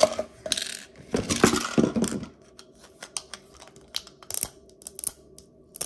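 Plastic toy packaging being handled: a rustle and scrape in the first two seconds as a Mini Brands capsule ball is worked out of its clear plastic tube. Then scattered small clicks and taps as fingers grip and pick at the plastic ball.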